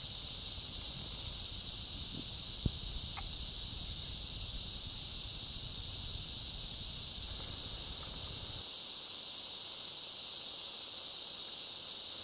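Steady high-pitched insect chorus, an unbroken shrill buzz, with a single faint click about two and a half seconds in.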